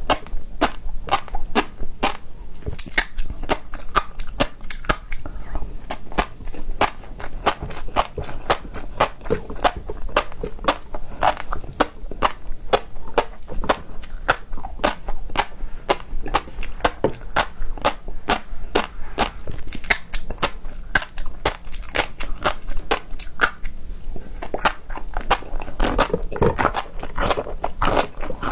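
Close-miked eating of raw seafood: continuous biting and chewing, heard as a dense run of sharp clicks and crackles.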